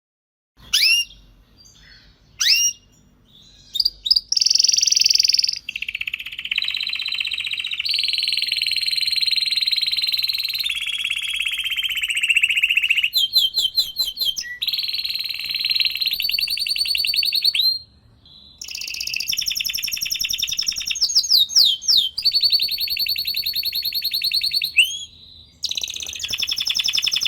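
Domestic canary singing: a few short rising call notes, then long fast rolling trills, some held steady and some in rapid strokes, with a brief pause partway through.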